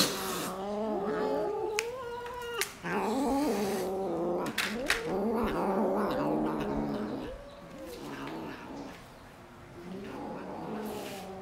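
Several cats yowling and growling at once while crowding round shared food, their drawn-out, wavering calls overlapping.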